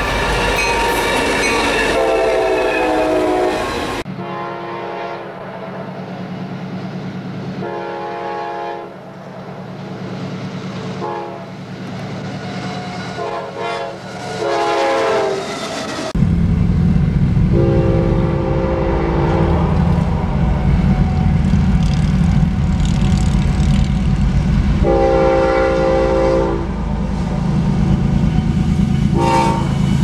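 Diesel locomotive air horns sounding a series of blasts, some long and some short, over the steady rumble of the locomotive's diesel engine. The sound changes abruptly about four seconds in and again just past halfway, where a louder, deeper engine rumble comes in under the horn.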